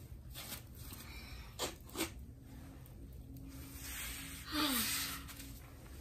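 Gloved hands scooping and packing crusty snow into a plastic cup, with two sharp clicks about a second and a half in. Near the end, a louder short breathy vocal sound with a falling pitch.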